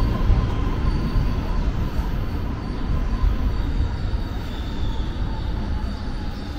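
Electric subway train running on the rails with a steady low rumble and faint high wheel-squeal tones, the sound easing slightly over the few seconds.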